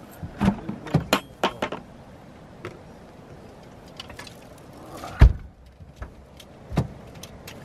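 Fishing gear being handled in the open boot of a station wagon: a run of knocks and clicks, then two heavy thumps, the louder about five seconds in.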